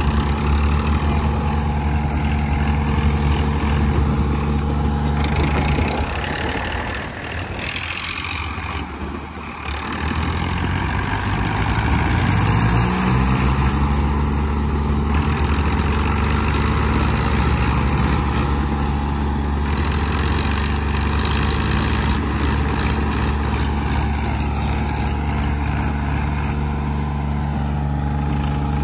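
Two tractor diesel engines, a Swaraj 855 and a New Holland 3630, running hard under full load in a tug-of-war pull. The sound sags between about seven and ten seconds in, then the engine note climbs in pitch and holds steady at high revs.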